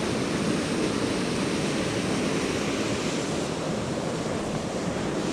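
Creek water rushing, a loud, steady, even noise.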